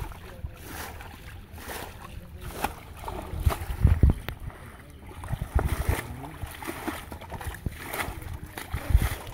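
Hands and legs working through shallow mud and water, squelching and splashing with irregular wet slaps and thumps, as fish are picked out of the mud at a net.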